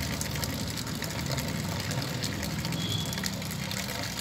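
A thin stream of water running out of a pipe and splashing into a brick pit, over a steady low hum.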